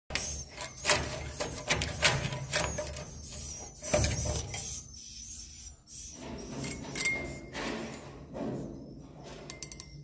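Swiftlet nests being scraped off wooden roosting planks with a metal scraper during a harvest, an irregular run of scraping clicks and knocks, the loudest about one, two and four seconds in.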